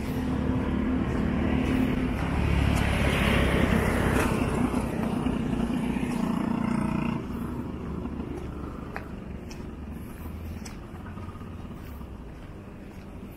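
A motor vehicle passing close by on the street, its engine and tyre noise rising to a peak about three to four seconds in, then dropping off sharply at about seven seconds to a lower steady traffic hum.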